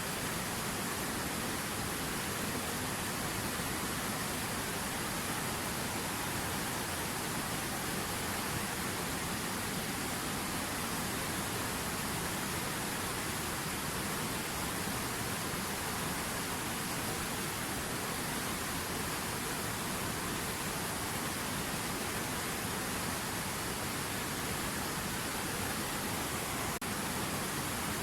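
River water running: a steady, even rush of flowing water with no change in level.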